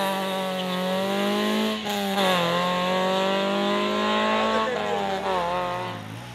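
First-generation Toyota Yaris rally car accelerating hard away from a stage start. Its engine revs up through the gears, with a short drop in pitch at a shift about two seconds in and another about five seconds in, and fades as the car drives off.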